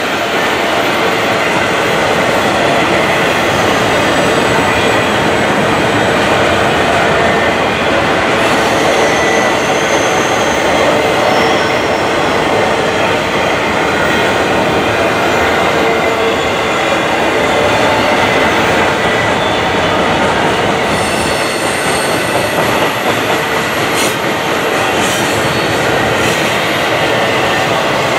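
Double-stack intermodal freight cars rolling past in a steady rattle and rumble of steel wheels on rail, with faint high wheel squeals now and then.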